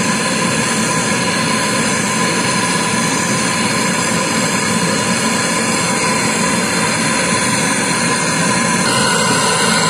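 Handheld gas torch burning with a loud, even hiss of the flame, heating a copper tube joint at a refrigerator compressor for brazing.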